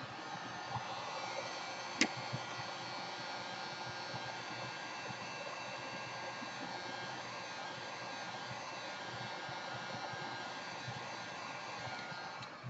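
Steady whirring of a small electric blower, with one sharp click about two seconds in; the blowing stops near the end.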